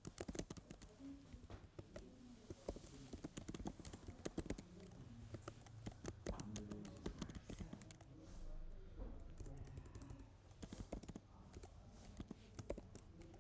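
Computer keyboard typing: quick, irregular keystroke clicks in bursts with short pauses between them.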